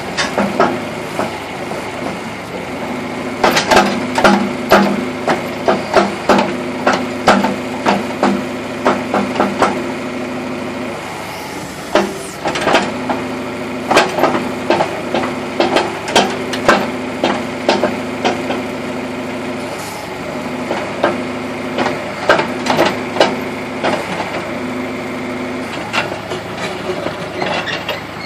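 Backhoe engine running steadily, with frequent sharp knocks and clanks in clusters.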